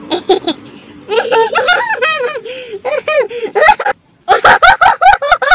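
High-pitched laughter: a string of rising-and-falling 'ha' syllables, a short break about four seconds in, then a faster burst of laughing.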